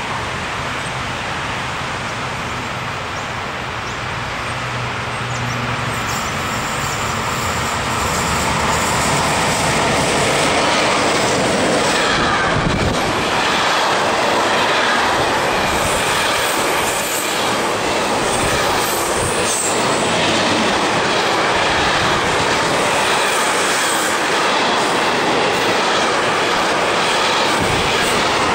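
Electric-hauled container freight train approaching and then passing close by. A steady low hum gives way, about a quarter of the way in, to the loud, continuous noise of the container wagons' wheels running over the rails.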